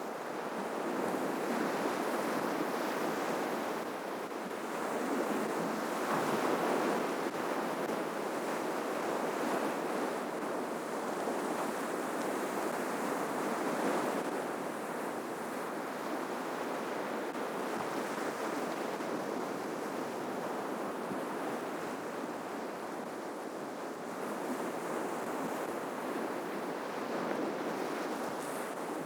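Ocean surf on the shore: waves breaking and washing in as a steady rushing noise that swells and eases every several seconds.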